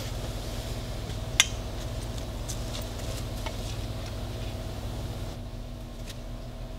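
Scattered metallic clicks and clinks from a small hand tool working at the outboard lower unit's shift rod connector, the sharpest about one and a half seconds in, over a steady low hum.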